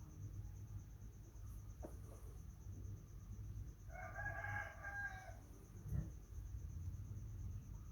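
A rooster crowing once, about four seconds in: a single held call lasting about a second and a half.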